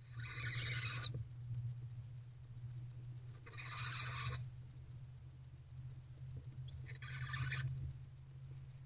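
Barn owlets giving hissing begging calls: three harsh, rasping screeches about a second long, a few seconds apart, over a steady low hum.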